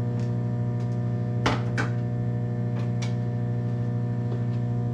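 Microwave oven running with a steady low hum, with a few light clicks and knocks as canned corn is emptied from the can into a metal saucepan.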